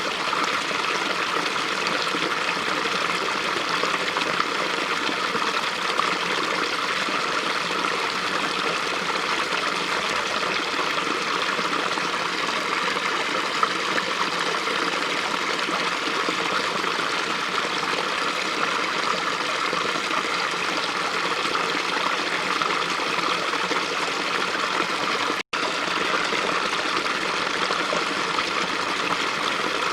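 Small brook flowing steadily, a continuous rush of running water that cuts out for an instant near the end.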